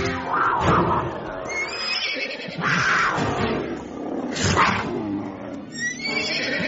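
A cougar snarls and growls in three harsh bursts roughly two seconds apart, over background music.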